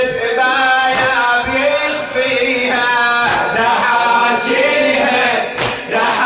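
Men chanting a Shia latmiyya mourning lament, a lead voice on a microphone carrying the melody over the group. A few sharp slaps cut through as they beat their chests in time, about a second in and again near the end.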